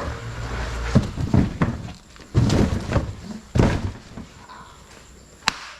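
A series of dull thumps and knocks, then one sharp click near the end, from handling an e-bike and its packaging while unboxing it.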